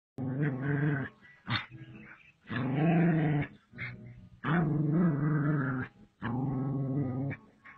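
Dog growling in four long stretches of about a second each, with short sharp sounds in between, as it squares off against a cobra reared up with its hood spread.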